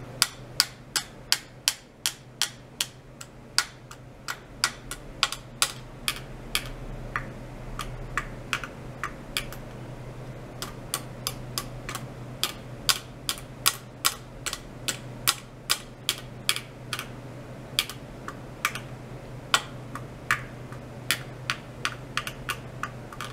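Sharp, irregular clicks, two or three a second and loudest in the first few seconds, over a steady low hum.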